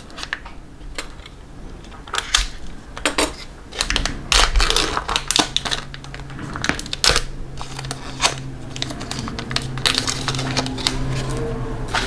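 Trading cards being handled and flipped through by hand: an irregular run of sharp clicks, snaps and sliding rustles as cards are moved one after another, busiest around four to five seconds in. A low steady hum comes in about eight seconds in.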